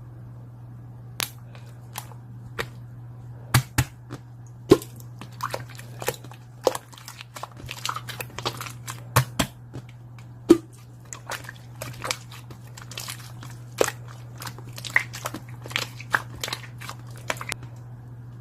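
Many sharp, irregular clicks and crunches, close and crisp, starting about a second in and stopping shortly before the end, over a steady low hum.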